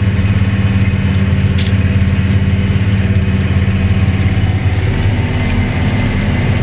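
Steady drone of a tractor engine and the John Deere pull-type combine it drives, heard from inside the tractor cab while the pickup feeds a barley swath into the combine.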